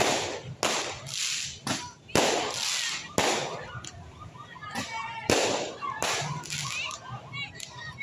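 Aerial fireworks bursting overhead: a rapid, irregular series of about a dozen loud bangs, some only a fraction of a second apart, each with an echoing tail.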